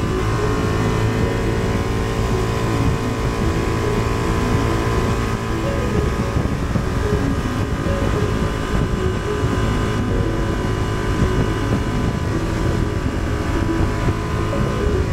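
2023 Honda Transalp's 755 cc parallel-twin engine running at a steady pace while riding, with rushing wind and road noise underneath.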